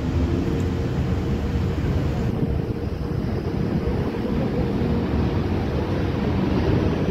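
Steady low rumble of heavy vehicle engines running.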